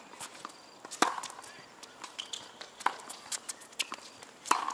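Tennis ball being struck by racket strings and bouncing on a hard court: three sharp pops a second or two apart, the loudest near the end as the serve is hit, with lighter shoe scuffs and clicks between.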